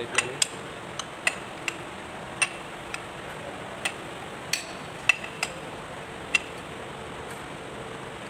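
Irregular sharp metallic clicks and clinks, about a dozen, as metal tools and parts knock against the valve train of a Kubota Z851 two-cylinder diesel's cylinder head during reassembly. The clicks stop about six seconds in, leaving a steady low hiss.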